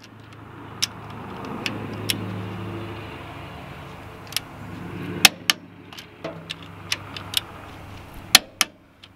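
Sharp clicks of a torque wrench on the cylinder-head bolts of a Kubota D1503 diesel, a single click now and then and twice in quick pairs, as the bolts are checked and brought up to torque. A steady low hum runs under them.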